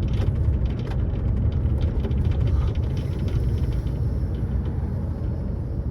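Steady low engine drone and road rumble heard from inside a moving lorry's cab.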